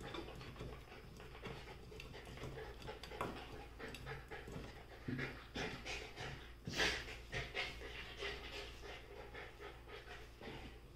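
Golden retriever puppies panting in quick, noisy breaths as they play-fight, with scuffling and one louder sharp noise about seven seconds in.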